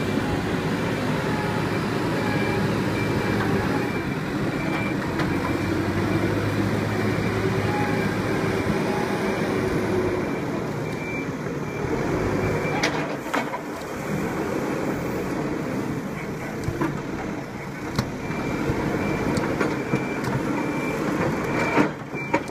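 Diesel engine of an MST M542 backhoe loader running under working load. A reversing alarm beeps in steady pulses during the first few seconds and again near the end, and a few sharp knocks of stone against the steel bucket come about midway.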